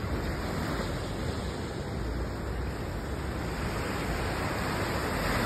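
Steady rush of ocean surf washing on the shore, with wind on the microphone; the wash swells a little near the end.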